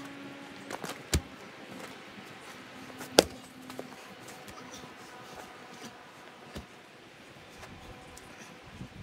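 Sharp wooden knocks from splitting firewood with a splitting maul: one about a second in, a louder one about three seconds in, and a fainter one later.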